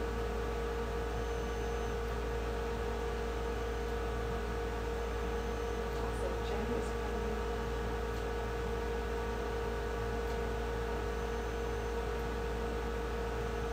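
A steady electrical hum: one mid-pitched tone with fainter overtones over a low drone, unchanging throughout.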